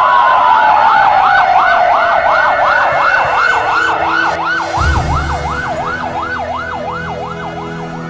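Emergency-vehicle siren on a fast yelp, rising and falling about two to three times a second, with a second tone gliding slowly down in pitch; it fades gradually. Low sustained music tones come in about five seconds in.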